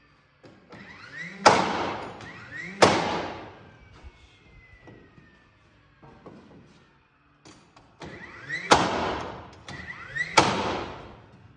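DeWalt cordless framing nailer firing four nails into the truss lumber in two pairs: a short rising motor whine before each loud shot, about a second and a half between the shots of each pair. Each shot echoes off the metal arched walls, with a few faint knocks between the pairs.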